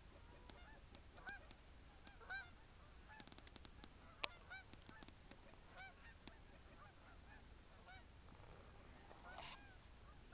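A flock of snow geese calling in flight: many short, overlapping honks rising and falling in pitch. Under them runs a low steady wind rumble, and there is a sharp click about four seconds in.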